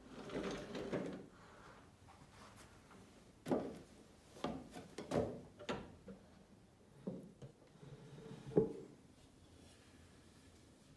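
Wooden drawers and sliding parts of a sculpted wooden box being pulled out and pushed back. A wood-on-wood scrape comes at the start, then a series of sharp wooden knocks and clunks, the loudest near the end.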